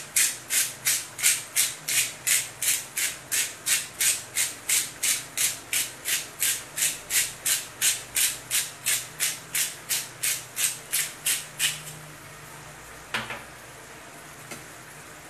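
Salt being shaken from a container, a steady rattling at about three shakes a second that stops about twelve seconds in, followed by a single short knock.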